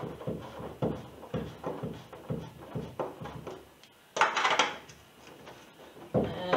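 Small irregular clicks, knocks and scrapes of a screwdriver, a nut and fingers against the canoe's hull and seat frame while a nut is threaded onto a seat-mounting bolt, with one louder scraping rustle about four seconds in.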